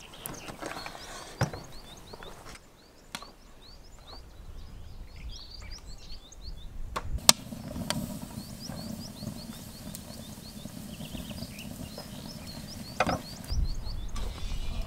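Small birds chirping throughout, over a few sharp knocks of a knife cutting meat on a wooden board in the first seconds. About halfway there is a loud crack, then a split-log wood fire burning in the firebox of a cauldron stove, with a low steady rush and occasional crackles.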